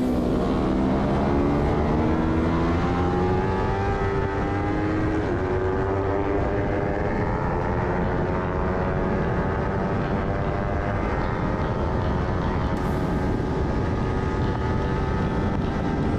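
Kawasaki Ninja 300 parallel-twin engine at race pace, heard onboard over heavy wind noise. The engine note climbs as the bike drives out of a corner, then holds high along the straight.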